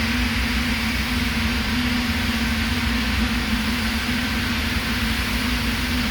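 Electric arc welding on steel pipe: the arc giving a steady, even frying hiss, with a steady low hum underneath.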